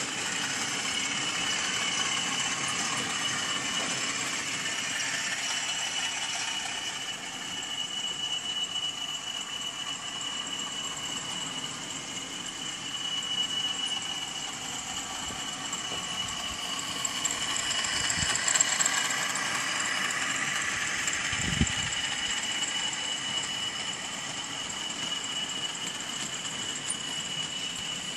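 Model railway train running: a model Class 37 diesel locomotive hauling a long mixed goods train, its motor running and the wagons rattling over the track, with a steady high whine throughout. It gets louder as the train comes past, about two-thirds of the way in.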